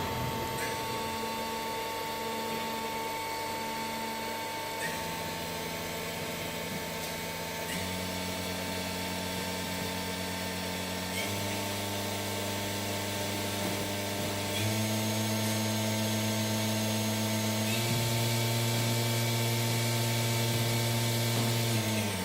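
Fanuc Robodrill Alpha-T14iBL machining center's spindle running and stepped up in speed about six times, every few seconds, its whine rising a notch and getting louder at each step, then winding down near the end. A steady high whine continues underneath.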